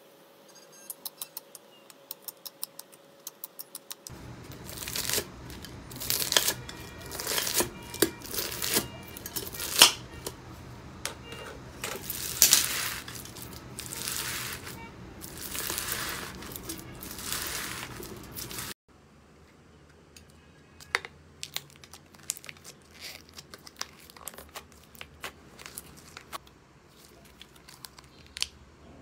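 Slime being squeezed and handled, making sticky crackling and popping sounds. The sounds come in three stretches that change abruptly: sharp clicks at first, then a long stretch of dense crackling with louder squishes, then sparser clicks and pops.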